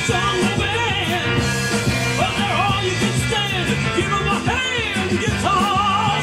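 Rock and roll band music with bass and drums, and a lead melody line bending up and down over them.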